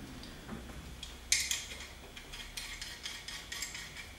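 Small hand tools and metal parts being handled: a sharp clink about a second in, then a run of light, irregular metallic clicks and rattles.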